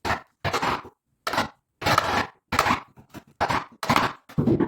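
Chisel strokes cutting the recess for a door latch keep into a wooden door frame: about eight short, sharp strokes, roughly two a second.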